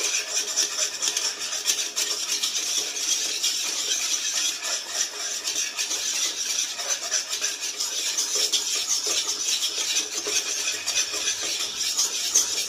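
A utensil stirring and scraping thick, reduced milk around the inside of a pan in quick, continuous strokes, a steady rasping rub. The milk has cooked down to the drying stage, where it has to be stirred without stopping so that it does not burn.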